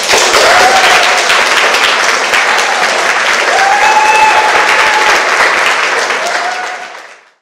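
Audience applauding after the dance, starting suddenly, with a few drawn-out calls from voices in the crowd on top; it fades out near the end.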